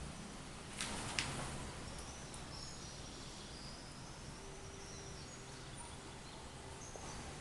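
Faint steady background noise, with two sharp clicks about a second in and faint high chirps through the middle.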